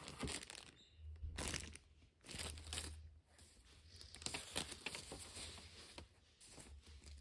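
Irregular rustling and crinkling of paper as an instruction manual is handled and its pages turned.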